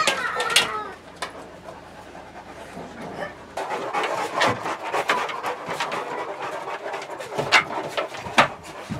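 Dogs panting, with scattered clicks and knocks of claws and paws on wooden decking as they move about.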